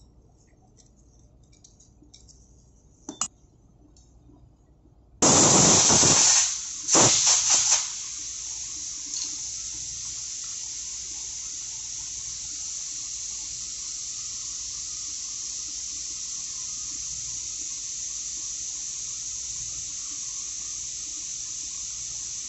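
Faint scraping and ticking of a steel pick working carbon out of a metal O-ring housing, with one sharp click. About five seconds in, a loud hiss starts abruptly, surges twice over the next few seconds, then settles into a steady, quieter hiss.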